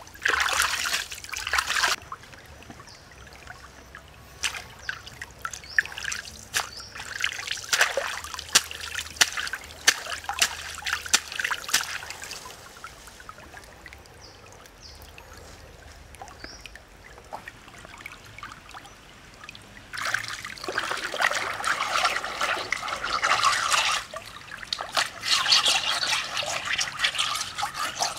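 Water trickling in a shallow stream, with stretches of hands splashing and sloshing in the water. The splashing is loudest in the last third, as a flat stone is scrubbed by hand in the stream.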